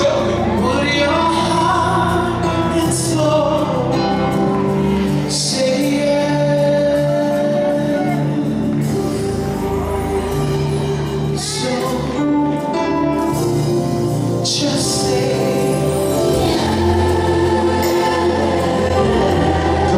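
Live gospel music: a group of singers holding sustained notes together over a band with a steady bass line, heard from among the audience in a large hall.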